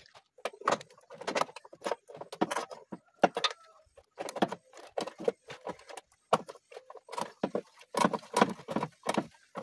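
A run of short knocks and clicks, about two a second, from hands handling parts and wiring in a car's engine bay.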